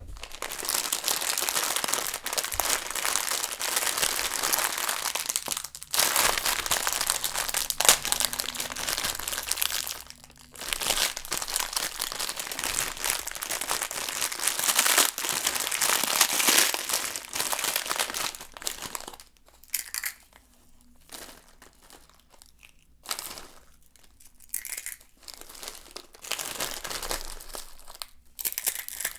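A plastic instant-noodle pack being squeezed and crushed by hand: the wrapper crinkles and the dry noodle block crunches inside. The crinkling is nearly continuous for the first half, with short breaks, then comes in shorter separate squeezes.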